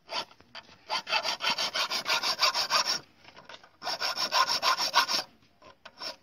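Flat hand file rasping back and forth across the flattened tip of a steel nail held in pincers, shaping it into a drill bit point. The file goes in two runs of rapid short strokes, several a second, with a brief pause between them.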